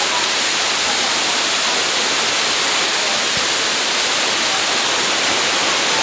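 Waterfall pouring down close by: a loud, steady rushing of falling water and spray.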